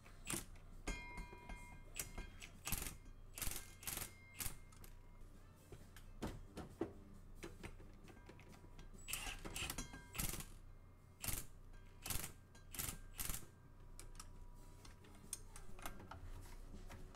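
Hand ratchet and wrench clicking and clinking on the guibo flex-disc nuts in irregular bunches of short metallic clicks, as the nuts are hand-tightened.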